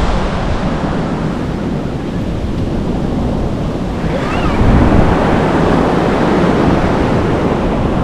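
Ocean surf breaking and washing up a sandy beach, with wind buffeting the microphone. The surf swells a little about halfway through.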